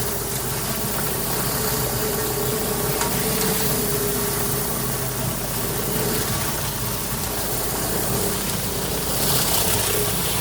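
Gas-engine pressure washer running steadily, with the hiss of high-pressure water from a surface cleaner working a concrete slab. The hiss grows brighter about nine seconds in.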